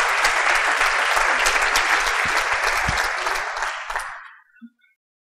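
Audience applauding with many hands clapping, dying away about four seconds in.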